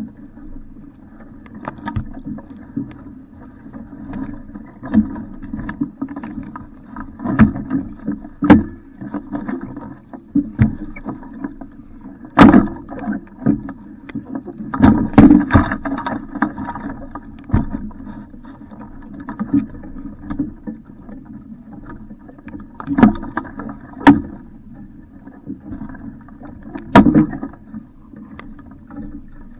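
Water sloshing and slapping against the hull of an Alcort Super Sailfish Mk II small sailboat, with irregular sharp knocks every few seconds.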